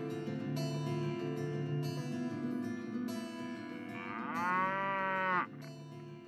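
Plucked-string music plays. About four seconds in, a cow moos once: one call that rises and then holds for about a second and a half, the loudest sound here, and cuts off abruptly. The music carries on more quietly afterwards.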